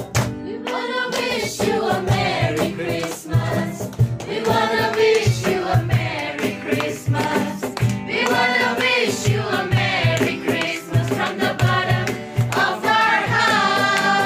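A group of carol singers singing a Christmas carol together over a steady beat.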